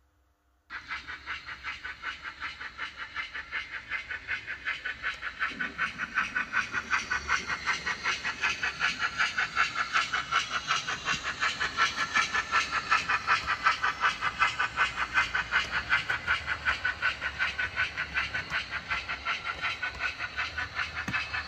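Model railway steam locomotive and coaches running on the layout: a rapid, even beat of about five pulses a second over a hiss. It starts suddenly about a second in and grows louder over the next several seconds.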